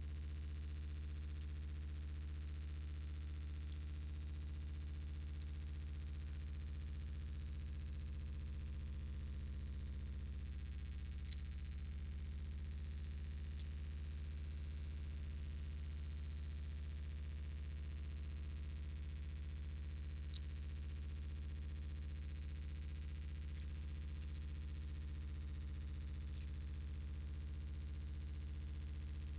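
A steady low hum that never changes, with a few faint, sharp clicks scattered through it; the clearest come about eleven, thirteen and twenty seconds in.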